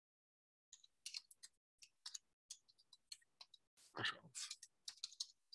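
Faint computer keyboard typing: a quick, irregular run of soft key clicks, with one louder, fuller knock about four seconds in.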